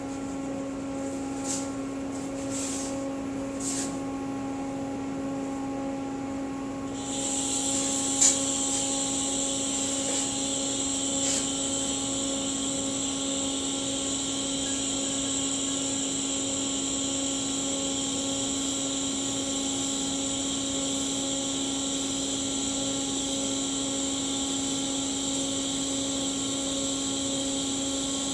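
TIG welding machine humming steadily; about seven seconds in the arc strikes and a steady high hiss joins the hum, with a sharp click just after.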